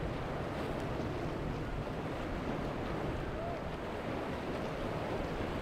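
Shallow seawater lapping and sloshing close to the microphone, with wind buffeting the microphone in a steady low rumble.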